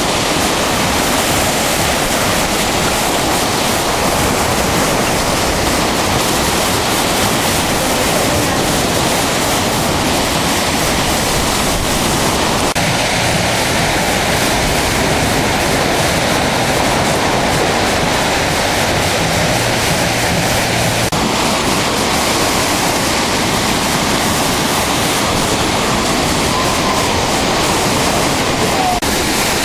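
Rushing floodwater: a loud, steady rush of water that abruptly changes character twice, about a third and about two thirds of the way through.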